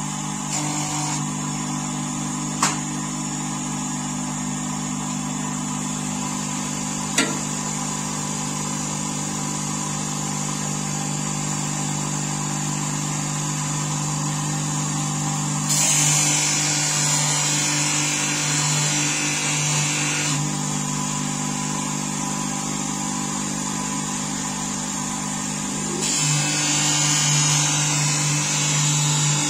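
Bench grinder motor running steadily while a hook knife is honed on its felt wheel charged with abrasive paste. A hiss of the blade against the wheel joins the hum for a few seconds about halfway through and again near the end. Two brief clicks come in the first several seconds.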